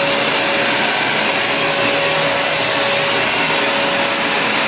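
Hoover FH52001V upright carpet cleaner running steadily: a loud, even motor rush with a steady whine on top.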